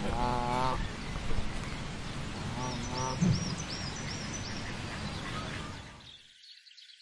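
Goose honking: one wavering honk right at the start and a shorter call about three seconds in, over a steady rushing background noise. Faint, high, repeated chirps run through the middle, and about six seconds in the background cuts away and it turns much quieter.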